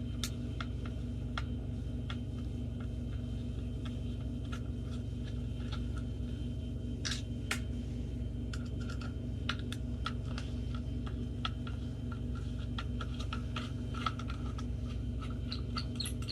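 Small irregular clicks and ticks of a T9 Torx driver turning screws out of the back of a plastic tachometer gauge housing, coming faster near the end, over a steady low hum.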